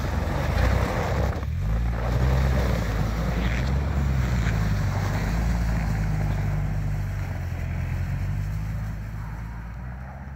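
UAZ Patriot SUV's engine working hard under load as it churns through deep snow, the revs rising about a second and a half in and holding as it pulls free of where it had bellied out. The engine fades near the end as the vehicle moves away, with wind buffeting the microphone throughout.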